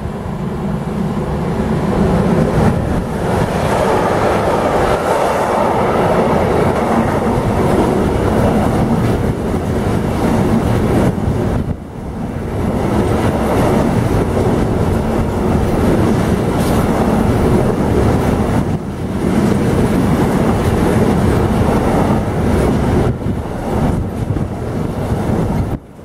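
A fast intermodal freight train running through a station close by, with the loud, steady rumble and clatter of its wagon wheels on the rails. The sound builds over the first couple of seconds as the train arrives and dips briefly about halfway through.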